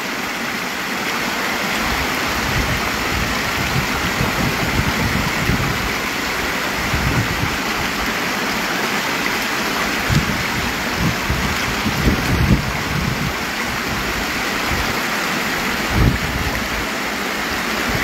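Shallow river water running steadily over rocks. Short, dull low thumps come every few seconds, strongest about 10, 12 and 16 seconds in.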